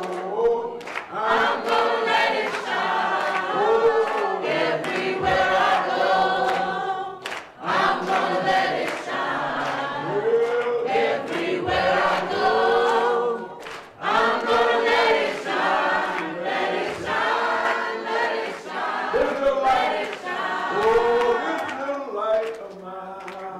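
A choir singing in long phrases, with brief pauses between them.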